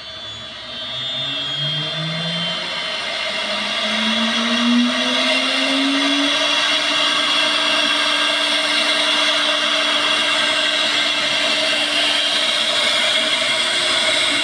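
CNC router spindle spinning up under an M3 start command: a whine that rises in pitch for about six seconds, then holds steady at its set speed of 18,000 rpm over a broad hiss.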